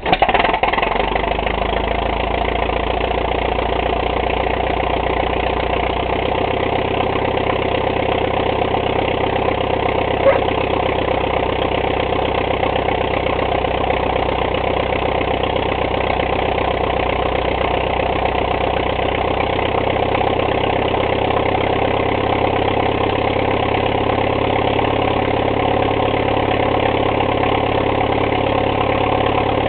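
A 1938 Farmall F-20 tractor's four-cylinder engine catching on the hand crank from a cold start, then idling steadily. There is a single sharp tick about ten seconds in.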